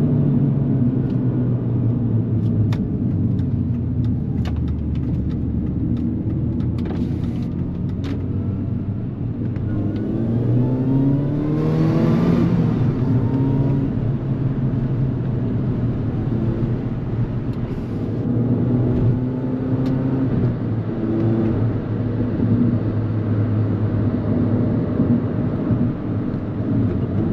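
Mini John Cooper Works GP (R53) supercharged 1.6-litre four-cylinder engine pulling steadily on the road, with the engine note climbing about ten seconds in as it revs up and then settling again.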